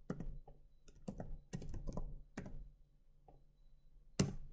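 Computer keyboard keystrokes and mouse clicks as a spreadsheet formula is typed, in short irregular clusters of clicks, with a pause and then one louder click near the end.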